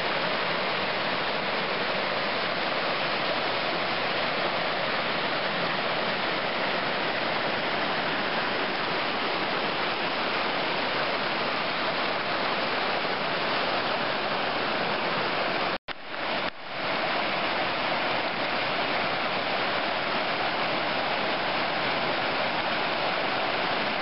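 Creek water rushing steadily over a small waterfall and down rock-ledge cascades. The sound drops out for a moment about sixteen seconds in, then comes back unchanged.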